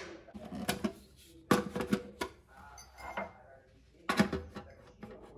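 Sharp plastic clicks and knocks from a Krups Dolce Gusto capsule coffee machine being loaded, its capsule holder pushed shut, then a knock as a ceramic mug is set on the drip tray about four seconds in.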